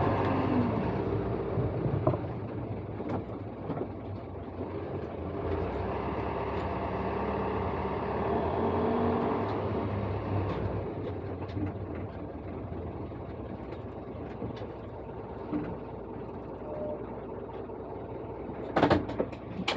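Engine and road noise of a dual mode vehicle (a bus converted to run on both rails and roads), heard from inside the cabin as it drives slowly in bus mode. The engine drone eases lower after about five seconds, and a few sharp knocks come just before the end.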